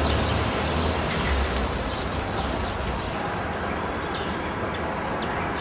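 Steady outdoor ambience: an even noise with a low rumble, and faint short high chirps scattered through it.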